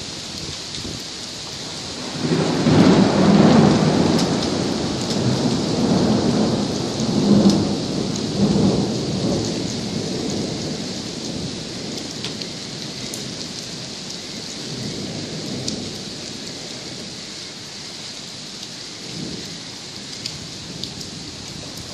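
Thunder rumbling over steady rain: a long rolling peal starts about two seconds in, is loudest for several seconds and slowly dies away, with fainter rumbles later on.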